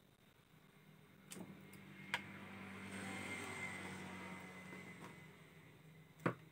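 A motor vehicle passing by, swelling and fading over a few seconds in the middle. A few sharp clicks and knocks come from the converter's circuit board being handled and set down, the loudest near the end.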